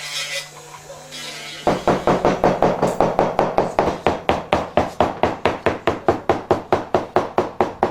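A fast, even series of sharp knocks, about four or five a second, starting about two seconds in: rapid regular hammering or tapping on a workpiece.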